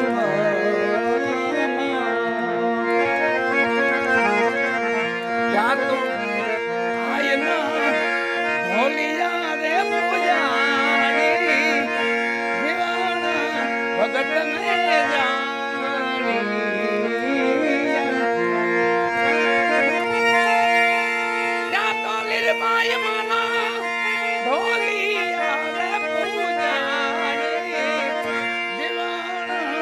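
Instrumental background music: a steady held drone with a melody gliding and weaving above it.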